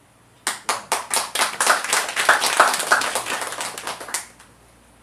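A small group clapping by hand: a few separate claps about half a second in quickly build into a short round of applause, which stops about four seconds in.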